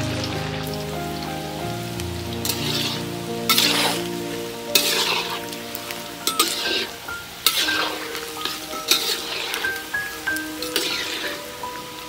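Hot oil sizzling and bubbling in a wok as battered snakehead fish pieces deep-fry, with louder surges of sizzle every second or two. Soft background music of single melodic notes plays underneath.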